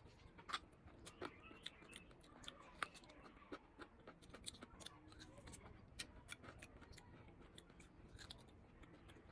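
Faint, close-up crunching of crisp food being chewed: a quick, irregular run of sharp crackles.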